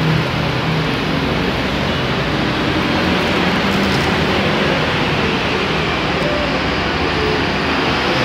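Steady, fairly loud rushing background noise, with a faint low hum underneath.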